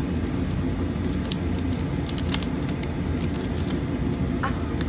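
Packaging being opened by hand: scattered clicks and crinkles of plastic and paper over a steady low rumble.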